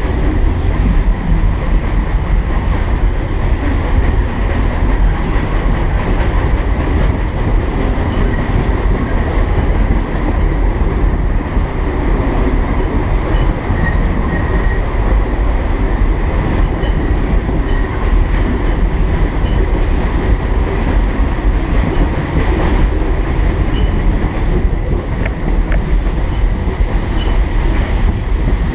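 1915 Baldwin steam locomotive and its train running along the track: a loud, steady rumble.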